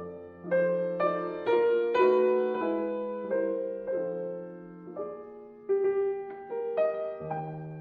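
Background music: a slow piano melody, single notes and chords struck about once or twice a second and left to ring and fade.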